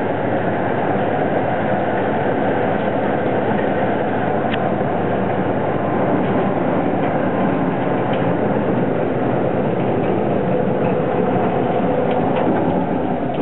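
Marvel Series 8 Mark II vertical bandsaw running: a loud, steady mechanical noise that holds even throughout, with a few faint ticks.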